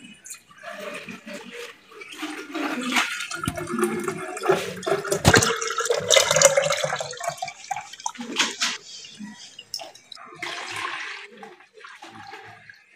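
Milkshake being poured into a jug, liquid splashing and glugging, with a pitch that rises partway through.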